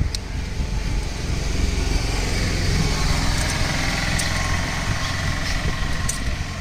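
A motor engine idling steadily, of the kind heard from a motorcycle, with a few light clicks over it.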